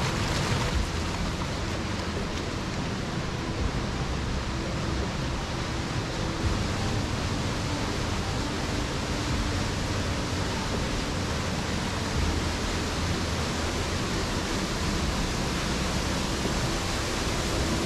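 Waterfall rushing steadily, an even unbroken noise.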